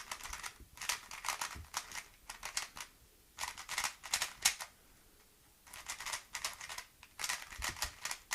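MoYu Aolong GT 3x3 speedcube being turned by hand for its first turns out of the box: flurries of rapid plastic clicking layer turns, about five bursts separated by short pauses.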